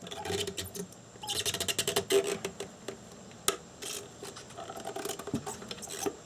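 Plastic fuel pump assembly being worked apart by hand after its four holding tabs were cut: clicking and rattling of the plastic parts, with a dense run of quick clicks about a second in and a single sharp click about three and a half seconds in.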